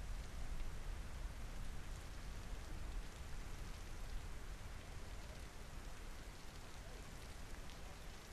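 Steady rain falling, a dense patter of drops with a low rumble underneath.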